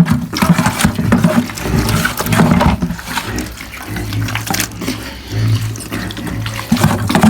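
A pig grunting repeatedly while it eats wet slop feed, with sloppy chomping and slurping.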